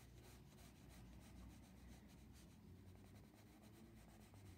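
Faint scratching of a Derwent Coloursoft pencil on paper: soft, irregular shading strokes over a low hum.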